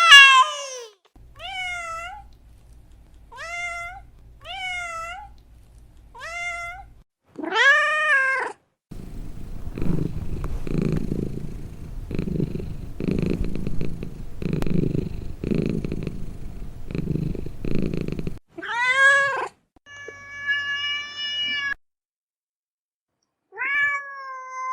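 Domestic cats and kittens meowing in a string of separate calls. Several are short, higher kitten mews that rise in pitch, and others are louder full meows. In the middle comes about nine seconds of low, rhythmic purring.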